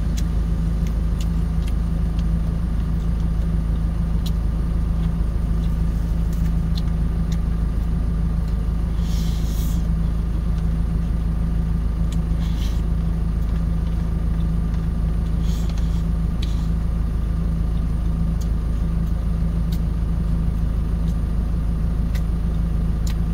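Truck engine idling steadily, heard from inside the cab as a constant low hum, with a few faint clicks and brief hisses over it.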